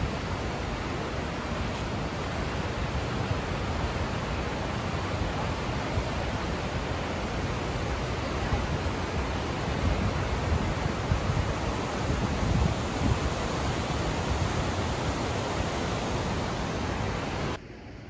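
Marmore Falls waterfall: steady, loud rushing of falling water with an uneven low rumble beneath it, cutting off suddenly near the end.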